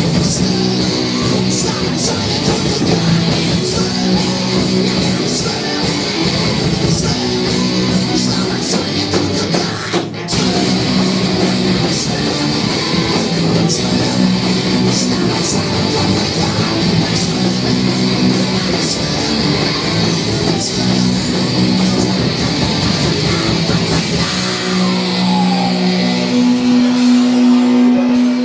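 Rock band playing live, with distorted electric guitar and drums. There is a brief break about ten seconds in, and near the end the band holds a final chord.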